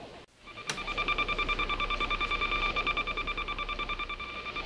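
Electronic beeping of a sci-fi control-panel sound effect: a high, steady tone pulsing rapidly, several beats a second. It starts about half a second in, after a brief drop-out.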